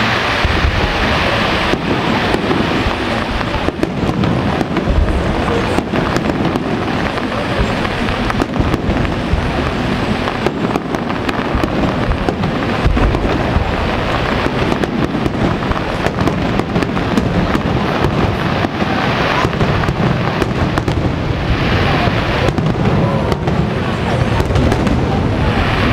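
Professional aerial fireworks display: a dense, continuous barrage of shell bursts and bangs with no break.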